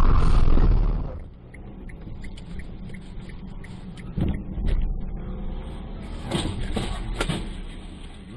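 A loud noise cuts off about a second in, then a car's steady low road rumble with a few knocks and sharp clicks.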